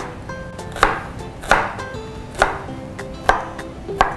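Chef's knife chopping onion and garlic on a wooden cutting board: about six even chops, a little under a second apart.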